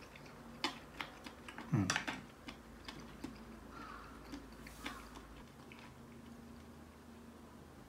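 Faint chewing and mouth sounds as a cooked mushroom from a hot pot is eaten, with light clicks of wooden chopsticks being set down on a chopstick rest, loudest about two seconds in. It goes quiet after about five seconds.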